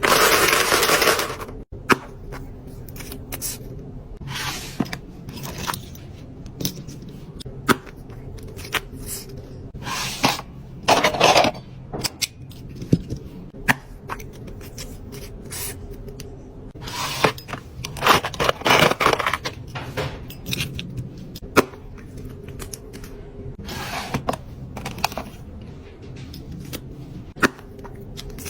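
Fingernails tapping and scratching on product packaging: scattered sharp clicks and short scraping bursts. A loud rustling noise at the start cuts off suddenly.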